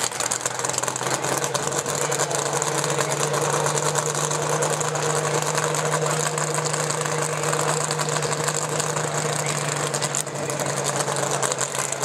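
Supercharged V8 dragster engine idling steadily during a pit warm-up.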